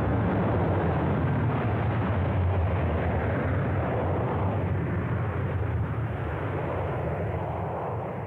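Jet airliner's engines running as it moves away down the runway: a steady, low engine noise that slowly fades.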